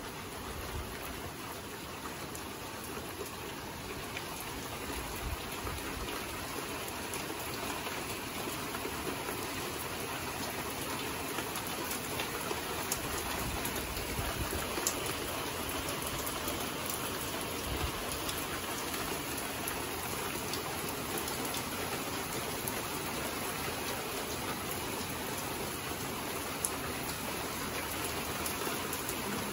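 Steady rain falling and pattering on nearby surfaces, with now and then a sharper drip; it grows a little heavier over the first several seconds, then holds.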